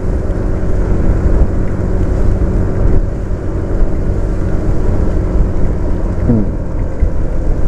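Motor scooter riding at speed on a wet road: wind rushing over the microphone, with the engine and tyre noise underneath. A brief falling tone comes about six seconds in.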